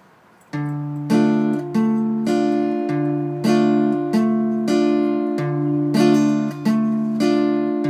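Solo acoustic guitar playing a song's intro, starting about half a second in: bass notes and chords in a steady rhythm of about two strokes a second.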